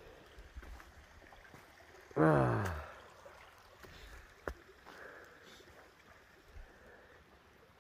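A man's voice making one short drawn-out sound that falls in pitch, about two seconds in, over faint rustling and a few light clicks.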